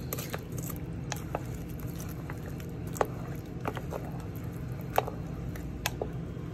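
A spoon stirring rice, broth and vegetables in a crock pot: soft wet squishing broken by sharp clicks of the spoon against the pot, the loudest about 3 and 5 seconds in.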